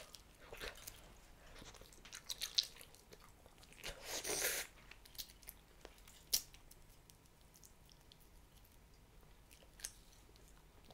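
Hubba Bubba bubble gum being chewed, faint wet clicks and smacks of the mouth, with a short noisy rush of air about four seconds in and one sharp click a couple of seconds later.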